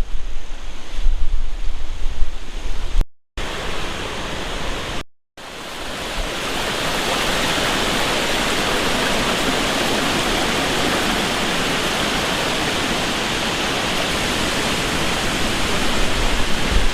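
Storm-swollen creek rushing steadily. Wind buffets the microphone with low rumbles during the first few seconds, before the steady water sound takes over.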